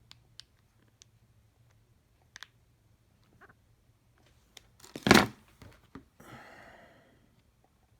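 Light clicks and taps of small screwdriver bits and a plastic case being handled, with one loud knock about five seconds in, followed by about a second of scraping rustle.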